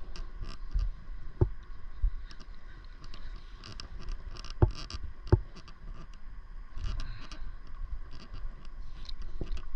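Small water lapping and slapping against an inflatable paddleboard, with a low rumble and a few sharp knocks, about a second and a half, four and a half and five seconds in.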